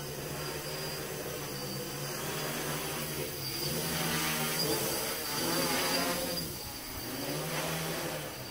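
DJI F450 quadcopter's four Emax MT2213 935kv brushless motors spinning 10-inch (1045) propellers with a steady buzz. The pitch and loudness swell and ease with the throttle as it lifts off and flies low, loudest in the middle, with a dip near the end.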